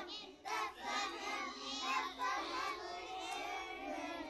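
A group of young children singing together, many small voices at once.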